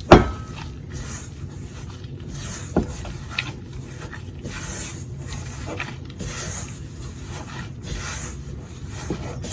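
Minced chicken being mixed with flour in a bowl: repeated rubbing, scraping strokes about once a second. A sharp knock comes right at the start, the loudest sound, and a smaller one about three seconds in.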